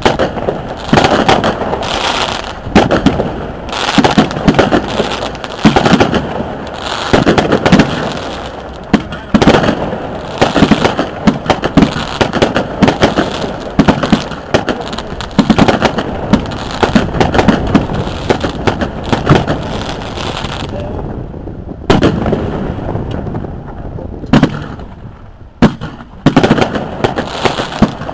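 Fireworks display: aerial shells bursting in quick succession, with sharp bangs and crackling. A short lull comes late on, then the bangs resume.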